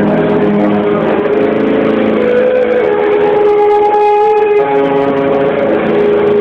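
Rock band playing live, with loud distorted electric guitars holding chords; the texture changes briefly about halfway through. Dull, muffled audience recording.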